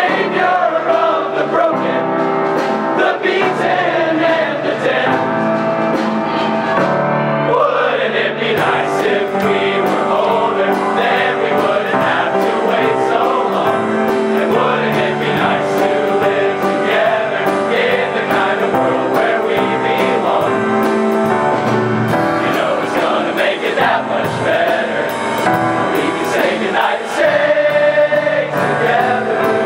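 Large all-male choir singing a pop song in close harmony, with sustained chords. A light percussive beat joins about eight seconds in.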